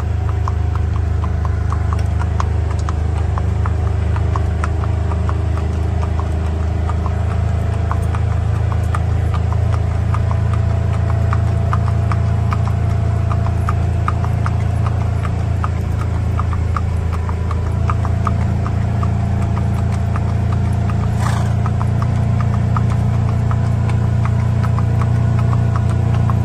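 Tennessee Walking Horse's hooves clip-clopping on a paved road as it gaits along under a rider, an even run of hoofbeats over a steady low hum.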